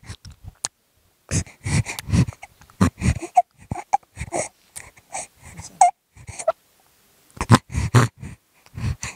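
Crying: short sobbing bursts separated by pauses, with a few brief higher-pitched wails through the middle.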